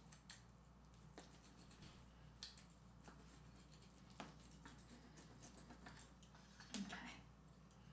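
Faint knife cuts through a baked quiche and its crust in the dish: a few soft, short crunches and scrapes over near-silent room tone, the loudest near the end.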